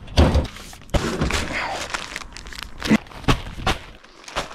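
A handful of sharp thuds and knocks, with the crinkling of a paper cement bag being handled between them.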